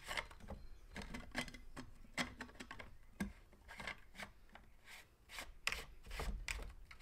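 Irregular clicks, taps and rubbing of hard plastic pool-pump fittings being handled and pressed onto the pump's connections.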